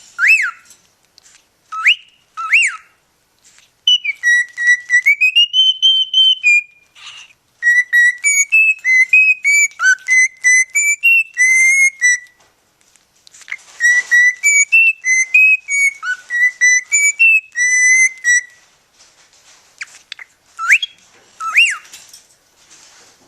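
Cockatiel whistling a tune in quick, clear notes, in two phrases with a short pause between them. A few short rising whistles come before the tune and two more come near the end.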